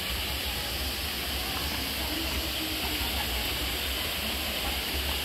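Steady rush of falling water from a spring-fed waterfall, with faint distant voices.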